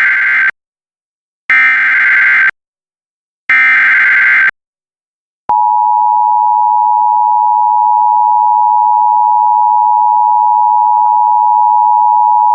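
Emergency Alert System activation. Three one-second bursts of SAME header data screech, a second apart, then a steady two-tone EAS attention signal that begins about five and a half seconds in and holds.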